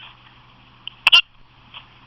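A person hiccuping once: one short, sharp hiccup about a second in.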